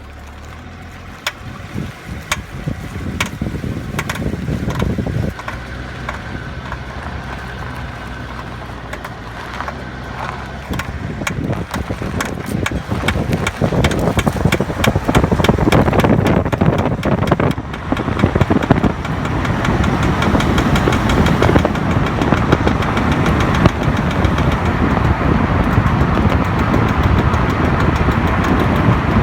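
Repeated knocking from the rear drive of a BMW E60 under way in Drive, over rising road and drivetrain rumble. The knocks start about once a second and come faster and faster as the car gathers speed. The cause is a worn driver's-side rear half-shaft, at its outer CV joint by the wheel.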